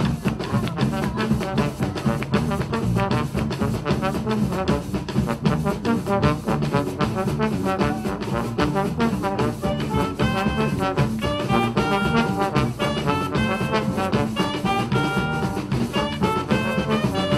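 Colombian fandango music played instrumentally by a brass band, with trumpets and trombones over a fast, steady drum beat. The horn melody stands out more strongly a little past halfway through.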